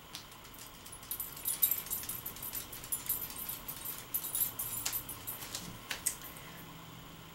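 Light metallic jingling with scattered small clicks, ending in two sharper clicks about a second apart near the end.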